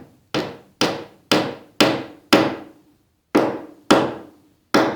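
Hammer tapping a small glued wooden plug into a worm hole in cedar wood, about eight sharp blows at roughly two a second with a brief pause midway, each with a short ring.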